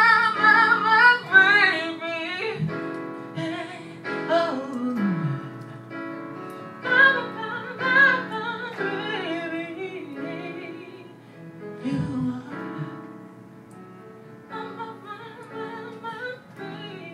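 Live singing over keyboard accompaniment: sung phrases with long, wavering held notes over sustained keyboard chords, growing quieter in the second half.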